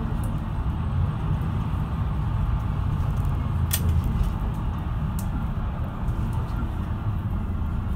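Mercedes-Benz Citaro II city bus driving, heard from inside the passenger cabin: a steady low engine and road rumble. A single sharp click comes about halfway through.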